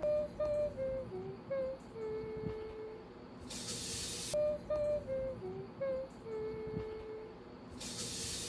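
Background music: a simple one-line tune of short notes ending on a long held note, played twice in a loop, each time with a short hiss-like swell near its end.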